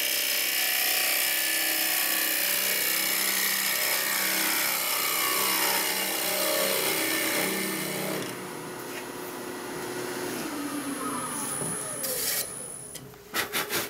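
Carbide-tipped cutter shearing into spinning ash on a wood lathe: a steady, hissing cut over the lathe's running tone for about eight seconds. Then the cut stops and the lathe runs on more quietly, with a few sharp clicks near the end.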